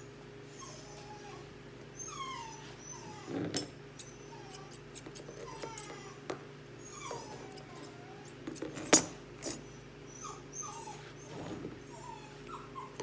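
English Cocker Spaniel puppy whining in short, repeated whimpers as its front feet are trimmed, with a few sharp clicks from the grooming scissors, the loudest about nine seconds in.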